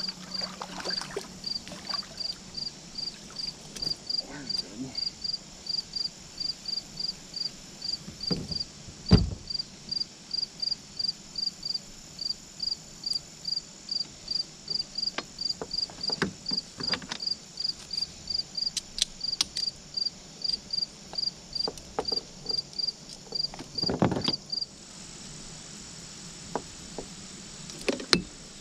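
A cricket chirping in a steady rhythm, about three short high chirps a second, stopping about 25 seconds in, over a constant high insect drone. A few knocks come through, the loudest a thump about nine seconds in.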